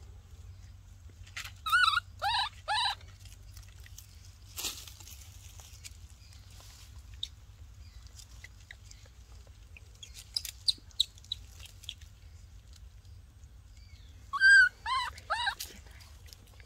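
Baby monkey crying: short, high-pitched arched squeals, three in quick succession about two seconds in and another group of three or four near the end, with a few faint clicks in between.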